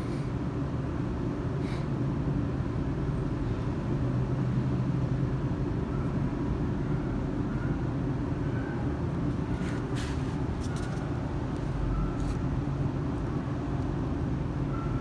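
Steady low background rumble, with a few faint clicks about ten seconds in.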